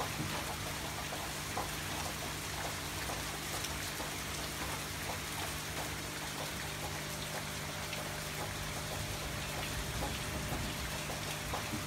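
Steady rain falling, a dense even patter of many small drops, over a faint low hum.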